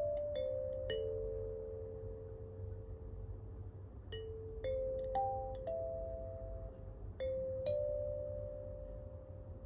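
17-key acrylic kalimba (Kimi) being played: single plucked tines ring out one after another in a slow melody, each note left to fade, with a longer held note before a second phrase about four seconds in. A steady low hum runs underneath.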